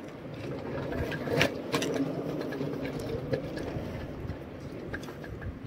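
A motor engine running steadily, a continuous mid-pitched hum, with a few light clicks over it.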